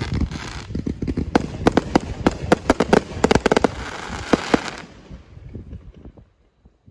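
A consumer fireworks cake firing a rapid volley of sharp bangs and crackles that stops about five seconds in. Scattered crackling then fades out as the last effects burn away, the closing volley of the display.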